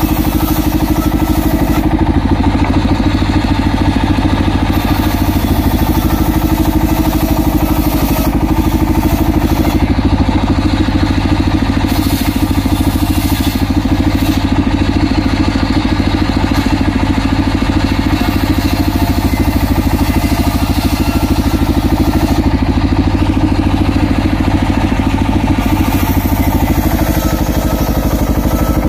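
Engine-driven homemade table saw with a large circular blade ripping an acacia log lengthwise. The engine runs steadily throughout, and the high hiss of the blade biting into the wood comes and goes in several long spells as the log is pushed through.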